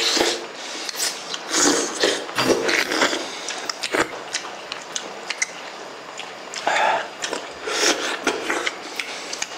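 Two people eating hot sea bream and seaweed soup: slurping it from bowls and chewing, in repeated short bursts, with the occasional click of wooden spoons and chopsticks on the bowls.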